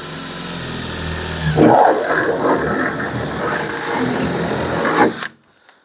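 Cordless drill boring a starter hole through the sheet-metal panel of a van's rear door, motor whining steadily under load. It stops abruptly about five seconds in.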